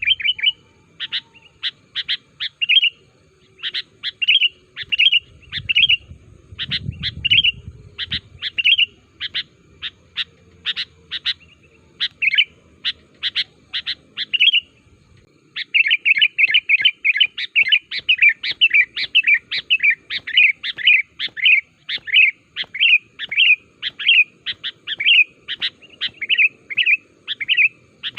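Sooty-headed bulbul (kutilang) calling: a quick series of short, clear chirping notes. About halfway through, the notes come faster and closer together as a steady chatter.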